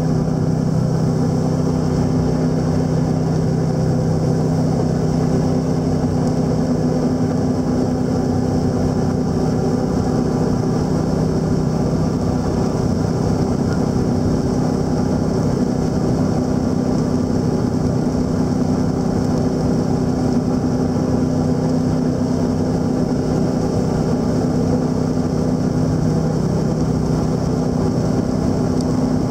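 A small jet boat's engine running steadily under way, heard from inside its enclosed cabin: a constant drone that holds one pitch, over a rushing noise.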